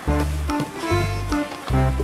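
Background music: a melody of held notes over a bass line that steps to a new note about every half second.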